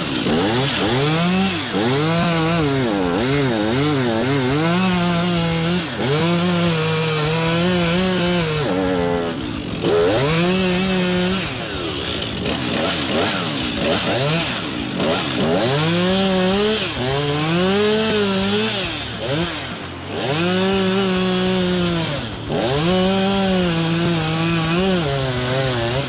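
Two-stroke chainsaw cutting into a tree trunk. Its engine pitch repeatedly drops as the chain bites under load and climbs again as it frees up, over and over.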